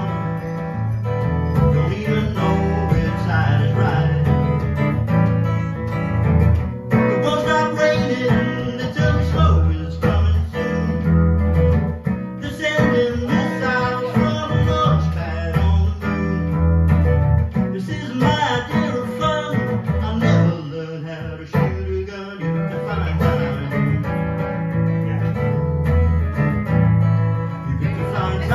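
Acoustic guitar played live by a solo performer, amplified through a PA.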